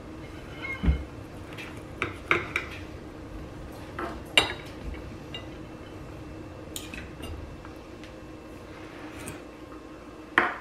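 Metal knife and fork clinking and scraping on a dinner plate while cutting grilled chicken, in irregular sharp taps.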